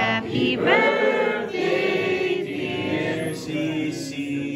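A small group of people singing together in unison, holding long notes.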